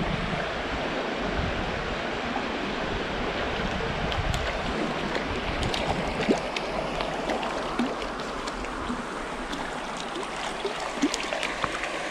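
Shallow stream water running and rippling over a rocky bed, a steady rush. A few brief, sharp splashes stand out in the second half.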